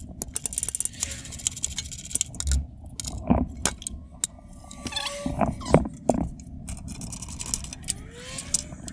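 Metal hand tools clinking and rattling with many sharp clicks while a radiator hose is worked loose, with a few short squeaky whines in between.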